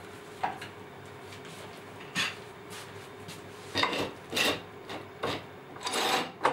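Steel pipe clamps being handled and set across a panel of wood strips for clamping: a series of short metal scrapes and knocks against wood, with a longer scrape about six seconds in and a sharp knock at the end.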